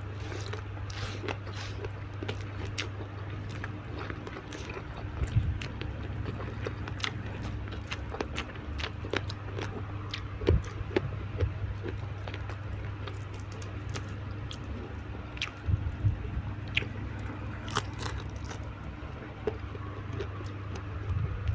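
Close-miked eating: irregular wet chewing and crunching of mouthfuls of tilapia and raw vegetables. A steady low hum runs underneath.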